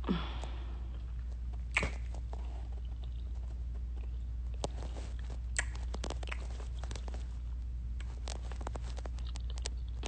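A person chewing close to a phone's microphone, with scattered short mouth clicks every second or two over a steady low hum.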